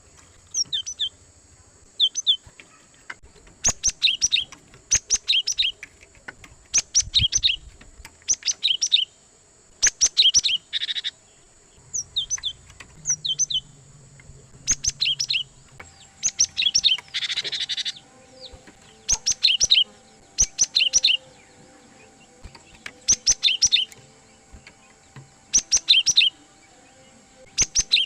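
Cinereous tit (gelatik batu) singing: short high chirps in groups of two to four notes, repeated about every second, with a couple of harsher buzzy calls mixed in. This is a lure song of the kind played to draw in wild tits.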